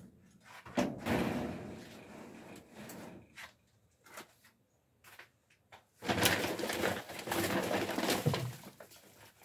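Rustling and crinkling of plastic bags and a tarp being handled, in two long stretches, with a few short knocks between.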